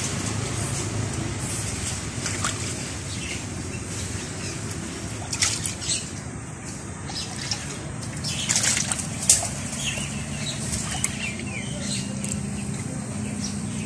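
Live fish thrashing and splashing in a shallow steel bowl of water as they are handled by hand: a scatter of short, sharp splashes, most of them bunched around the middle.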